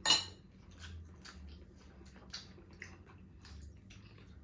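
People eating at the table: a sharp clink of tableware right at the start, then faint chewing with small scattered clicks of eating.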